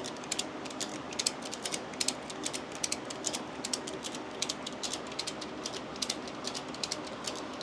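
Ratchet pawl of a hoist clicking steadily, about three to four clicks a second and some in quick pairs, as the suspended car body is raised.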